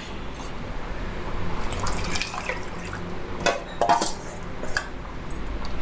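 Thick cooked dal stirred with a steel ladle and poured from a steel vessel into a pot of gravy: wet sloshing and plopping, with a few sharp clinks of steel against steel.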